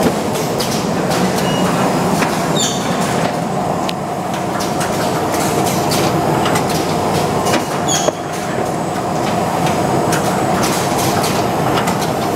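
Automatic rigid box making machine running: a steady mechanical clatter with many quick clicks, and a short high sound twice, about five seconds apart.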